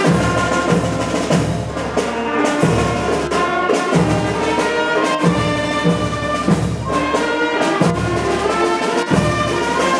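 Orchestral background music led by brass, with a steady beat of percussion.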